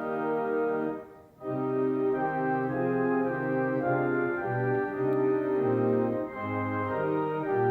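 Church organ playing a hymn tune in held chords, with a brief break between phrases about a second in.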